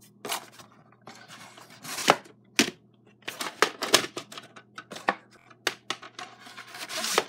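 Plastic VHS cassettes and clamshell cases being handled as the tapes are swapped into the right cases: irregular clicks and knocks of plastic, with short scraping rattles, the longest near the end.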